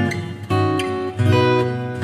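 Background music of strummed acoustic guitar, with a new chord struck every half second or so.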